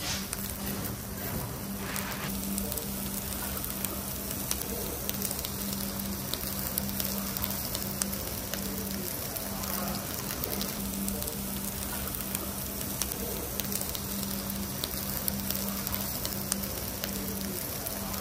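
Meat sizzling on a tabletop charcoal grill's wire mesh, with frequent small pops and crackles as fat drips onto the hot coals. A steady low hum runs underneath.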